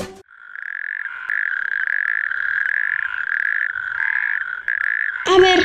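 Frog croaking in a steady, pulsing trill, about two pulses a second, the call taken as a sign that rain is coming.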